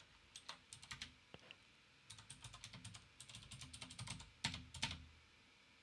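Computer keyboard typing: quick runs of key clicks in short bursts, with two louder keystrokes about four and a half seconds in.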